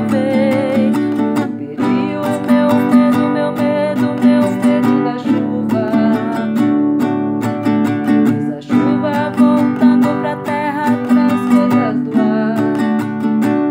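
Acoustic guitar strummed in steady chords by a beginner, the chord changing every few seconds, with a woman's voice singing along in places.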